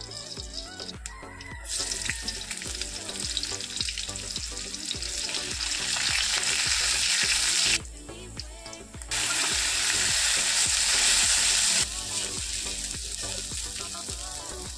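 Onion frying in hot oil in a steel kadai and being stirred with a spatula. The sizzle starts about two seconds in, cuts off abruptly twice, and is loudest in the middle. Soft background music plays underneath.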